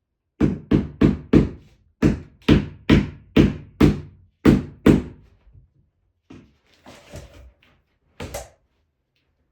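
Plastic hammer striking a floor transition strip to seat it: about eleven dull knocks, two or three a second, then a few softer knocks and scrapes and one last strike near the end.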